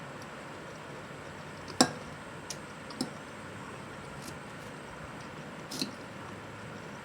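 Eating sounds at a close microphone: a few short sharp clicks, like utensils or shells against a plate, the loudest about two seconds in and another near the end, over a steady low hiss.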